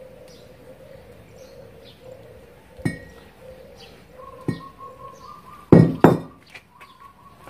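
A 30 kg steel anvil clanking on concrete as it hangs from and is set down with a garden hose: two lighter knocks, then two loud clanks close together near the end. Birds chirp faintly in the background.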